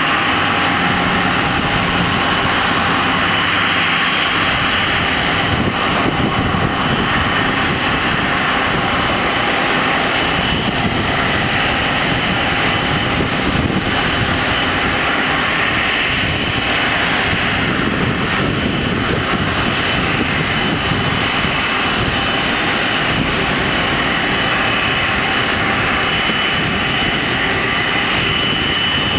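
Jet aircraft engine noise on an airport apron: a steady roar with a high whine.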